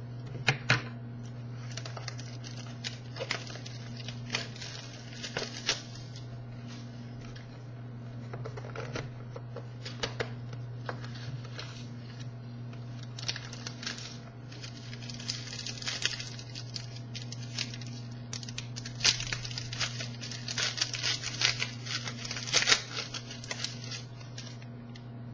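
Trading card box and pack wrapping being opened by hand: irregular tearing, crinkling and rustling of packaging, with cards handled, over a steady low hum.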